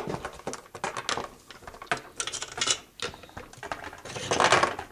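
Small plastic toy figures clicking and tapping against a surface as they are handled, with a louder rustle about four seconds in.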